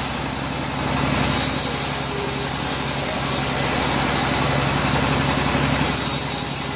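Engine-driven homemade bandsaw mill running steadily while its blade rips a teak board. The cutting noise rises about a second in and eases near the end.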